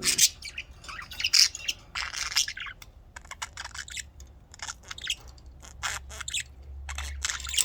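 Budgerigars chirping and chattering in quick, irregular, high-pitched calls.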